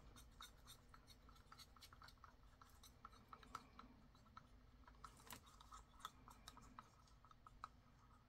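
Faint, irregular scraping and clicking of a stir stick mixing epoxy resin with brown colorant in a small cup.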